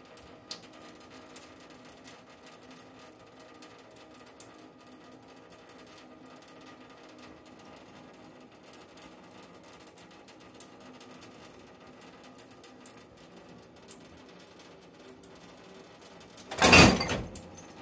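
Thin stream of tap water falling into a stainless steel sink, a faint steady trickle with a low hum behind it. Near the end, a sudden loud noise lasting under a second.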